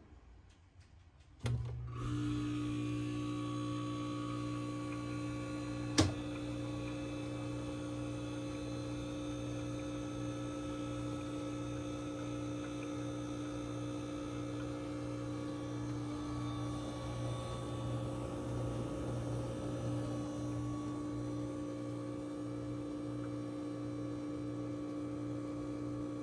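Restored 1979 Friedrich Powermiser window air conditioner running with its fan on low: a steady hum made of several fixed tones that starts abruptly about a second and a half in. A single sharp click sounds a few seconds later.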